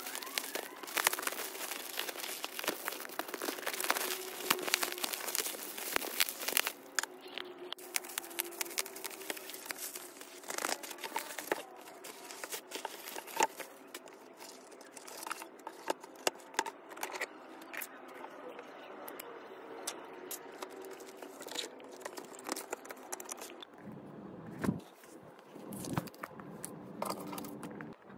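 Plastic shipping wrap crinkling and tearing as a parcel is unwrapped by hand, with dense crackling for the first ten seconds or so, then sparser rustles and handling noises.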